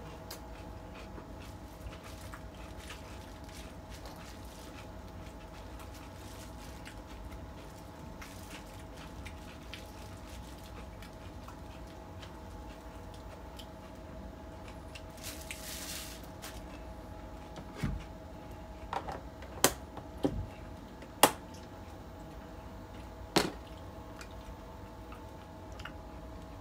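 Gloved hands pressing napa cabbage kimchi into a plastic food container with soft squishing, then a run of sharp plastic clicks and snaps about two-thirds of the way through as the container's clip-lock lid is pressed on and its latches snapped shut. A steady hum sits underneath.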